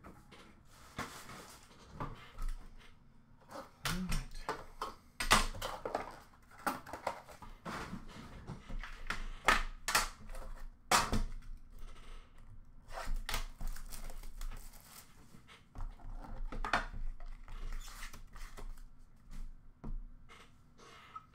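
A metal trading-card tin and its packaging being handled: the lid lifted off and a cardboard inner box and cards taken out, giving scattered clicks and knocks with some rustling, the sharpest knocks about 5, 9½ and 11 seconds in.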